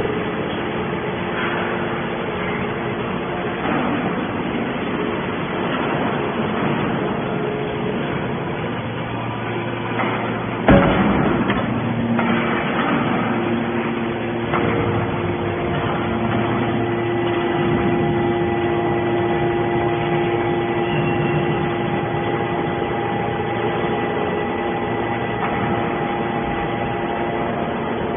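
Homemade metal can baler running with a steady mechanical hum, and one sharp knock about eleven seconds in; a steadier humming tone sets in over the second half.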